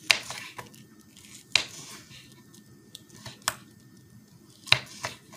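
Several sharp clicks and knocks, spaced a second or two apart, with two close together near the end, from things being handled and set down in a kitchen.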